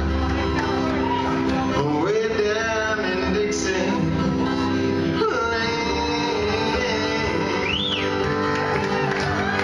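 Two acoustic guitars strummed and picked together, with a man singing.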